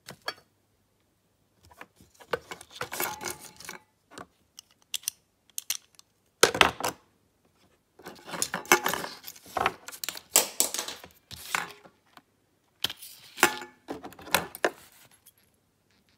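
Small metal and plastic objects being handled and rummaged through by hand: clinking and rattling in several bursts of a second or two with short pauses, including keyring and chain jangles, and one louder clatter about six and a half seconds in.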